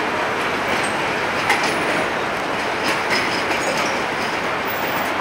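Tatra KT4 articulated tram rolling past on curved street track: a steady running rumble of steel wheels on the rails, with a few sharp clacks from the wheels over the track and a faint high flange squeal in the curve.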